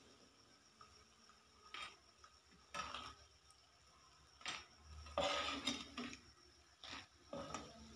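Metal tongs clinking against a steel frying pan and a wire strainer as fried papdi are lifted out of hot oil: faint, irregular taps about a second apart, with a longer rattle about five seconds in.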